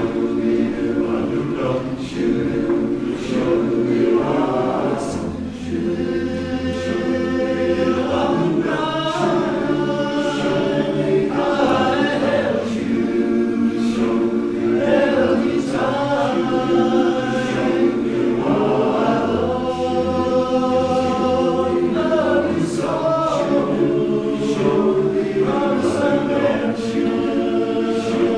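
Barbershop chorus singing a cappella, many voices holding sustained chords in harmony that change every second or two.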